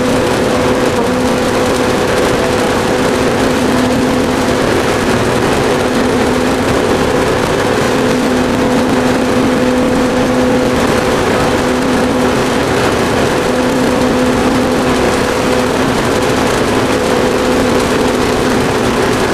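A boat's motor running steadily, heard from on board, with an even, unchanging drone over a hiss of water and wind.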